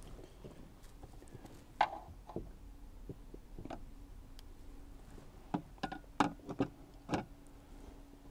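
Scattered clicks and knocks as a screwdriver and fingers work at the top of a car's in-tank fuel pump module and its connectors, with a quick run of sharp clicks about two-thirds of the way through.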